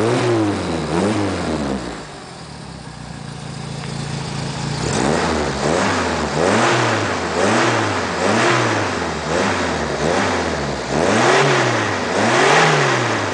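Renault 8's four-cylinder engine through an aftermarket dual-outlet exhaust, blipped repeatedly at about one quick rev a second. About two seconds in it settles to a steady idle, and the quick revs resume about five seconds in. Recorded on a phone microphone, so the sound quality is poor.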